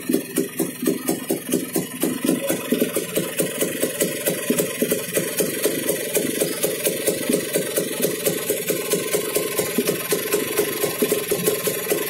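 Kawasaki HD3 125 cc two-stroke single idling steadily in an even pulse. It is a freshly rebuilt engine at standard bore, being run in.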